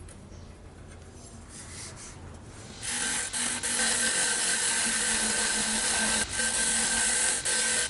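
Wire wheel on a bench grinder scrubbing rust off a steel knife blade. It is a loud steady hiss over the grinder motor's hum, starting sharply about three seconds in, with two brief dips where the blade comes off the wheel.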